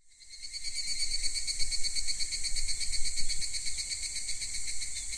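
Chorus of night insects such as crickets, a high, rapidly pulsing chirring that fades in over the first second and then holds steady.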